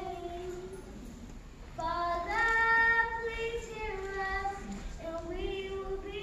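Children's gospel choir singing held notes, dipping softer about a second in before a louder sustained phrase.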